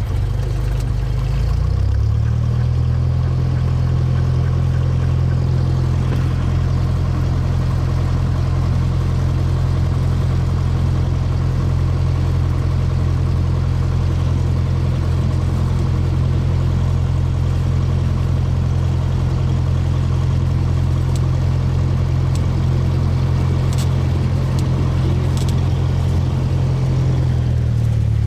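A Cessna's single piston engine and propeller running steadily at low taxi power, heard from inside the cabin. The engine note steps up about two seconds in and drops back just before the end.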